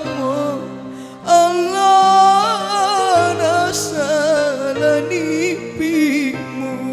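A song: a singing voice with vibrato over held accompaniment chords that change every second or two.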